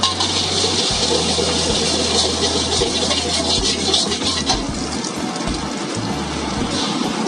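Beaten egg sizzling in hot oil in a large iron wok: a loud hiss over the first four seconds or so that then dies down, while a long metal spatula scrapes and scrambles it against the pan. A steady low hum runs underneath.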